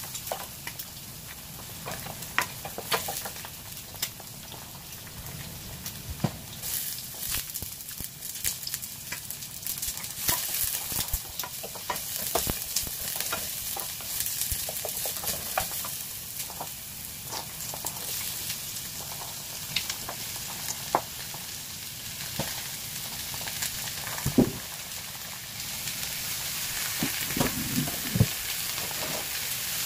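Chopped garlic and onion sizzling in hot oil in a stainless steel frying pan, stirred with a wooden spoon that scrapes and clicks against the pan, with an occasional louder knock. The sizzle grows louder over the last few seconds, once sliced peppers and peas are in the pan.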